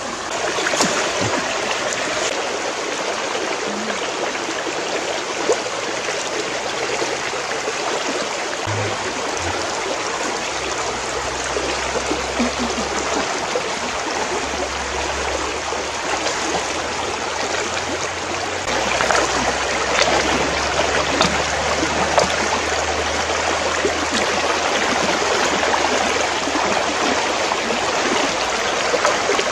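Shallow rocky stream running and babbling over stones, with splashing from feet wading through the water. It gets a little louder about two-thirds of the way in.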